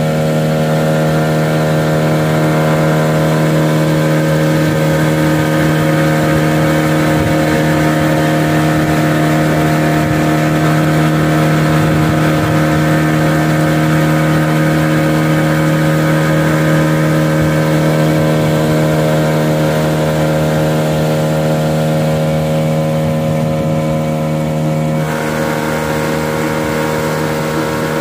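A small fishing boat's engine running steadily under way, a loud, even drone with a slight change in tone near the end.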